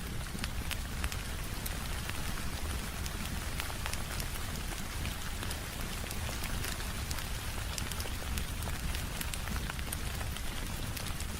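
Steady rain mixed with a crackling wood fire in a fireplace: an even hiss with a low rumble underneath, dotted with frequent sharp crackles and pops.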